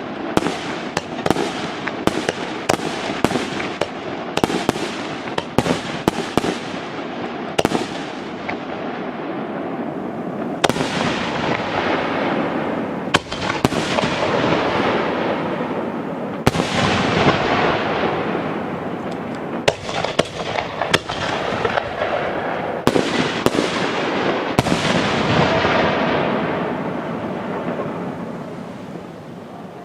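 Aerial fireworks shells bursting close by: a rapid run of sharp bangs, then single bursts each followed by a long hissing tail that fades out. The sound dies away near the end.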